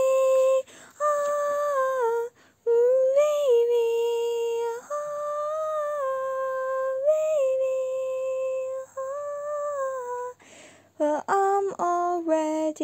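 A high voice humming a slow tune in long, steady held notes, breaking off briefly a little after ten seconds, then quicker sung notes near the end.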